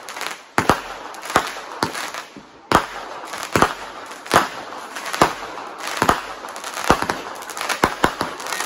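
Consumer aerial fireworks going off shot after shot: about a dozen sharp bangs, one every half second to a second, with hissing and crackling between them.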